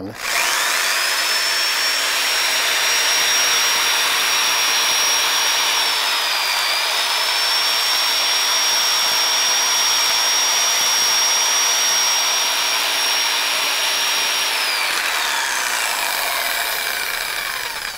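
Corded electric jigsaw running with no load on the blade: its motor whine rises quickly on switch-on, holds steady with a brief dip in pitch about six seconds in, then falls away as the motor winds down near the end.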